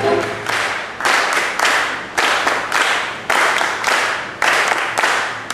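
Audience applauding as the tango music ends, the clapping swelling and easing in waves.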